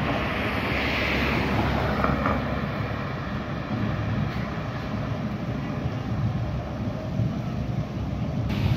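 Street traffic: vehicles running past with a steady low rumble.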